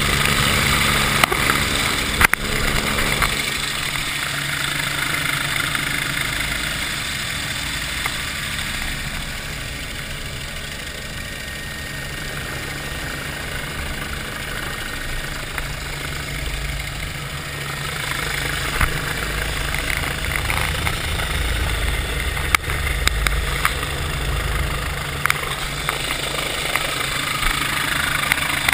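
Helicopter engine and rotor noise with wind rushing over the microphone during a hoist. A steady hum fades a few seconds in. A few sharp knocks sound near the start and again later.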